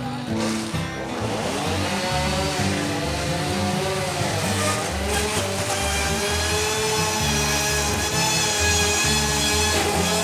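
Background music with a steady, repeating bass line and a sustained, wavering lead.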